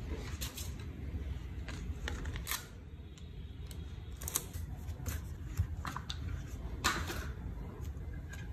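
Handling noise from a thin plastic sheet and a 3D-printed plastic mold being set on a glass plate: scattered short rustles, crinkles and light taps over a low steady hum.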